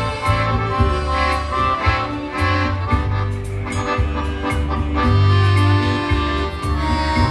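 Live polka band playing: two piano accordions carry the tune over a stage keyboard, with low bass notes alternating in a steady beat.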